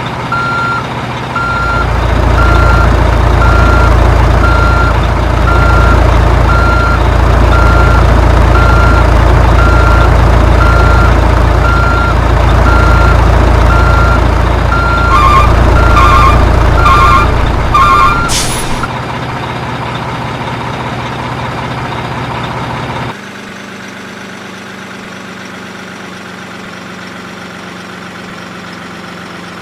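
Heavy vehicle engine running loudly with a reversing alarm beeping about once a second. Near the end of the beeping a second, lower alarm joins with quicker groups of beeps. Then the loud engine falls away, and from about two-thirds of the way in only a quieter steady idle remains.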